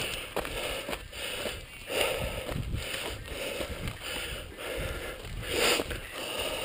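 A mountain biker breathing hard in rhythmic breaths about every half-second to second while riding, over the rumble of knobby tyres rolling on a loose dirt trail.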